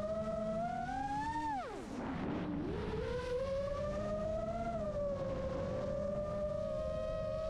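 Motors and propellers of an iFlight Chimera 7 Pro 7-inch FPV quadcopter whining, picked up by the onboard GoPro. The pitch rises, drops steeply about two seconds in as the motors spin down, then climbs back within a second and holds fairly steady with small wavers.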